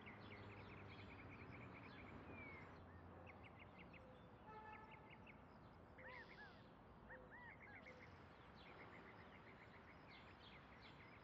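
Faint birdsong: runs of quick chirps and a few short arching whistled notes over steady low background noise.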